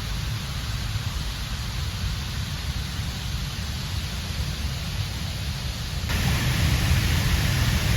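Waterfall: rushing, falling water making a steady hiss over a low rumble. The hiss grows suddenly louder about six seconds in.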